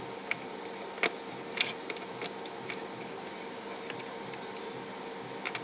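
Scattered small sharp clicks of a screwdriver and loose screws being worked out of a PlayStation 3's circuit board during disassembly, with a quick run of clicks near the end, over a steady faint hum.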